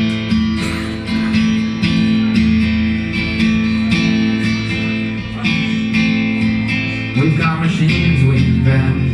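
A live band's instrumental intro: guitar chords strummed at a steady pace, the sound growing fuller about seven seconds in.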